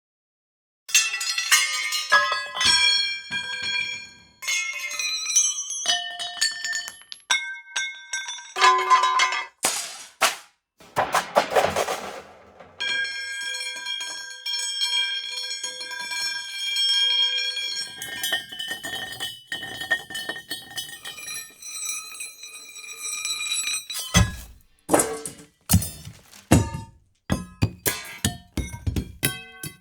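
Metal objects dropped on concrete, a series of clangs that ring on with bright, bell-like overtones. Then metal rolling on concrete, a sustained ringing with rattling and a low rumble. Near the end, metal pieces dropped on dirt, sharp hits with deader, duller thuds.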